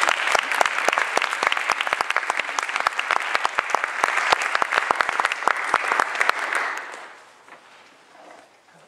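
Small audience applauding, with separate claps close by standing out, dying away about seven seconds in.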